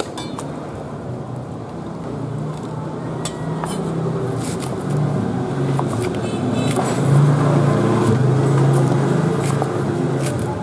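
A motor vehicle engine running close by, its low hum building up and loudest past the middle. Over it, a cleaver chops lemongrass stalks on a wooden chopping board in irregular sharp knocks.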